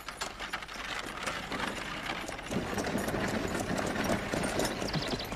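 Horse-drawn covered wagon moving along: a busy rattling clatter of the wagon with hoofbeats, growing louder about halfway in.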